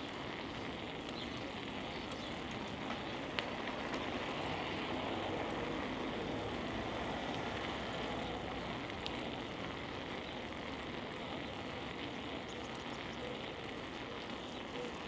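Steady rolling noise of a bicycle ride, tyres on pavement mixed with wind on the microphone, with a couple of faint sharp clicks.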